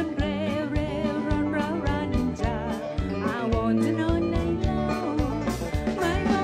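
Woman singing a country song into a microphone with vibrato, backed by a live country-bluegrass band: a drum kit keeping a steady beat under guitar and plucked strings.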